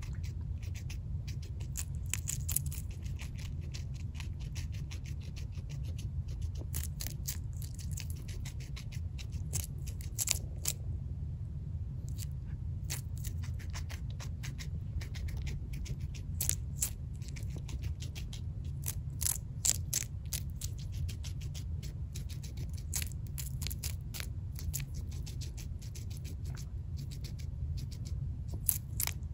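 Guinea pig chewing a strip of green bell pepper: rapid, crisp crunching clicks in runs, with a short pause about eleven seconds in.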